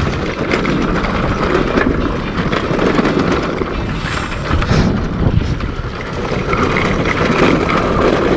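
Trail motorcycle running on a rough mountain dirt trail, with a steady stream of knocks and rattles and wind on the microphone. The rider suspects a crushed bearing.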